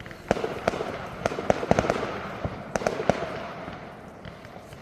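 Fireworks going off: a string of sharp bangs and crackles at irregular intervals over a low rumble, thick in the first three seconds and thinning out toward the end.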